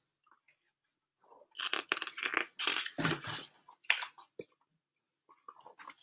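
A large hardcover picture book being closed and turned over by hand: a burst of rustling and handling noise, then a couple of short sharp knocks.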